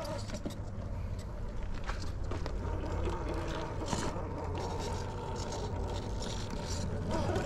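Radio-controlled rock crawler (Traxxas TRX4 with a Hobbywing Fusion SE 1800KV brushless motor) climbing slowly over rock and tree roots: its motor and drivetrain run at crawl speed under a steady low rumble, with scattered small scrapes and clicks from the tyres and chassis on the rock.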